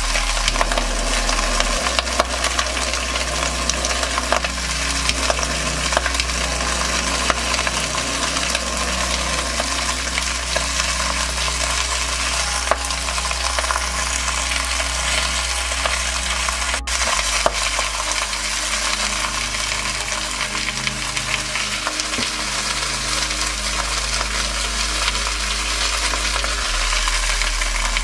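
Chunks of meat and bone sizzling and crackling steadily as they brown in hot oil in a stainless steel pot, with a steady low hum underneath.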